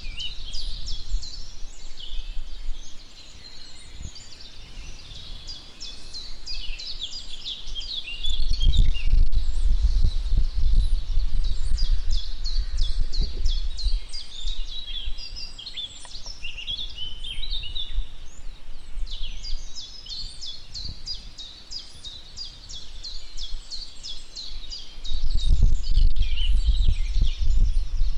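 Small songbirds chirping and twittering in quick, repeated notes, with a low rumble that swells about eight seconds in and again near the end.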